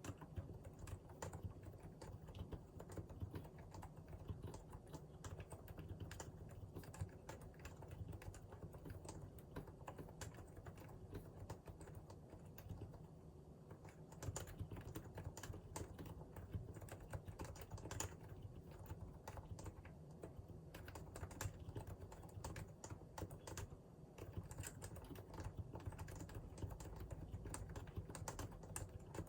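Continuous typing on a Realforce R2 PFU limited edition keyboard with Topre electro-capacitive switches: a steady stream of soft, muted keystroke clacks, easing off briefly around the middle.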